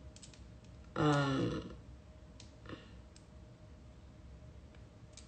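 A brief wordless vocal sound from a woman, a hum or throat-clearing sound falling in pitch, about a second in, followed by a few faint clicks over low room tone.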